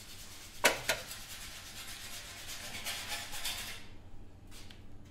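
A heavy Salmson cylinder block handled on a steel workbench and set on bathroom scales for weighing. Two sharp knocks a bit under a second in are followed by a few seconds of scraping and rubbing as the block is shifted into place.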